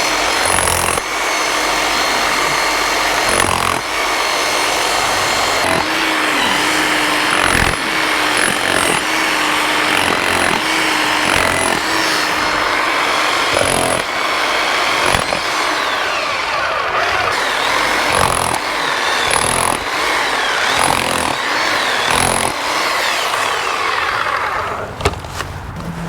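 Electric chipping hammer running against concrete, widening a crack in a foundation so it can be packed with hydraulic cement. It runs loud and steady with a few brief pauses, and stops shortly before the end.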